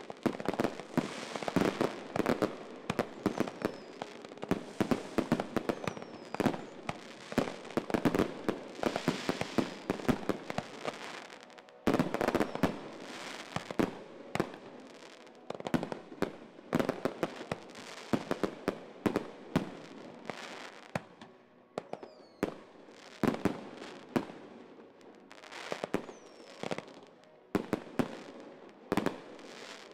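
Aerial fireworks display: a rapid barrage of shell bursts and crackling, densest for the first twelve seconds or so with a loud burst about twelve seconds in, then more spaced-out bangs.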